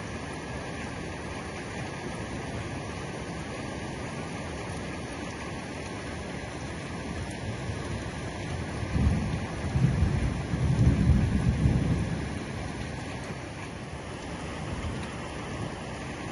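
Heavy rain falling steadily, with a low rumble of thunder swelling about eight seconds in and dying away some four seconds later.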